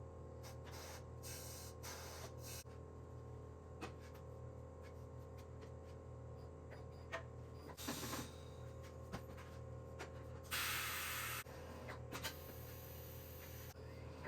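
Compressed air hissing in short bursts, the loudest lasting about a second near the middle, over a steady low hum: air going into a tyre as it is mounted on its rim.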